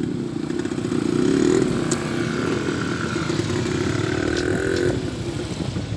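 Motorcycle engine running at road speed, heard from on the moving bike, with a dense low rumble. The engine note rises briefly about a second and a half in, and a higher steady whine sounds from about two to five seconds in.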